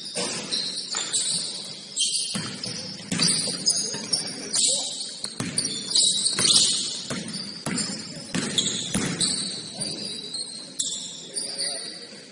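Basketball game play: the ball bouncing on the court at irregular intervals, with short high-pitched squeaks of sneakers on the floor.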